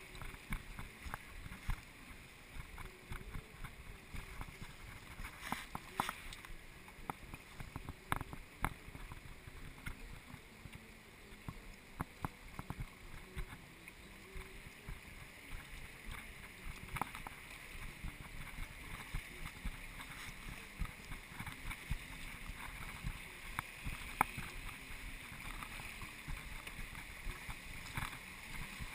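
Fast, choppy river water rushing and splashing around a moving canoe, with scattered small knocks and slaps against the hull.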